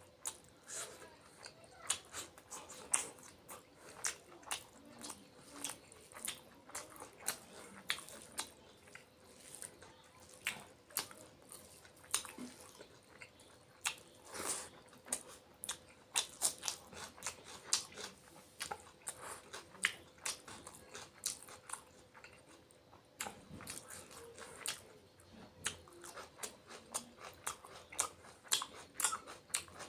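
A person eating close to the microphone: a dense, irregular run of wet chewing, biting and mouth clicks, with some crunching. A faint steady hum sits underneath.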